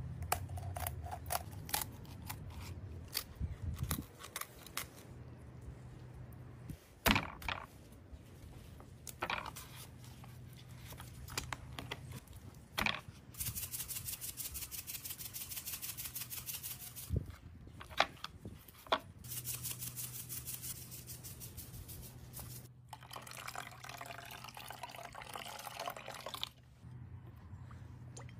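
Food-preparation sounds: sharp snips and cracks of poultry shears cutting through a raw chicken, then a long stretch of fast, fine rattling from a seasoning shaker being shaken over the meat, and liquid sounds near the end, with a low steady hum underneath.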